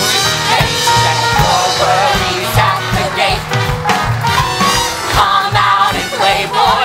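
Upbeat musical-theatre show tune played by a band with a steady drum beat, with voices singing.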